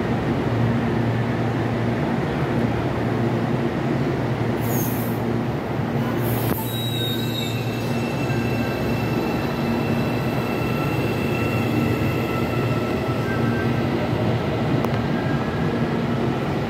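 CPTM Series 9500 electric commuter train moving along the platform, with a steady low hum and wheels squealing on the rails. There are two short hisses about four and a half and six seconds in.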